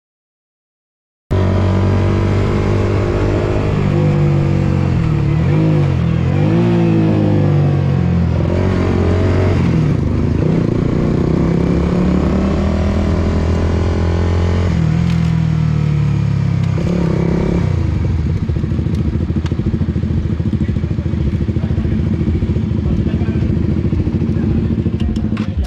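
Suzuki GSX-R150's single-cylinder four-stroke engine under hard riding, cutting in about a second in, with its pitch rising and falling repeatedly as it revs through the gears, then holding steadier near the end.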